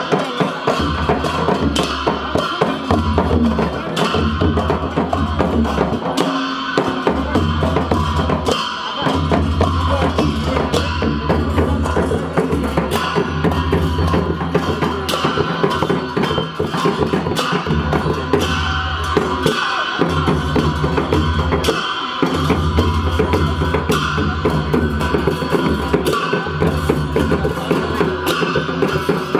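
Traditional Newari drum music: a large double-headed dhimay drum beaten in a continuous driving rhythm, with a steady ringing tone above it.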